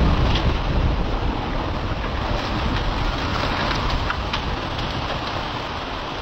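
A steady rush of wind and surf during coastal flooding, with heavy, uneven wind buffeting on the microphone.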